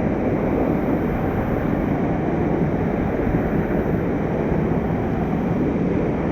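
Rushing water of a mountain stream, a steady, unbroken noise with no let-up.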